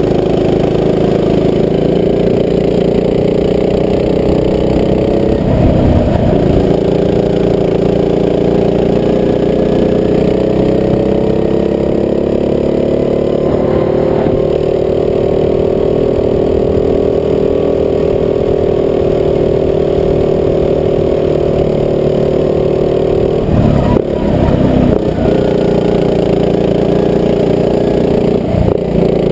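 Rental go-kart engine running at speed, its note climbing slowly and dipping briefly a few times as the throttle is lifted and reopened.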